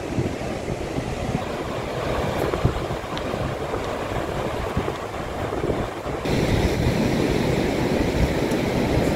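Strong wind buffeting the microphone in an irregular low rumble, over the wash of surf breaking on the beach. It grows suddenly louder and brighter about six seconds in.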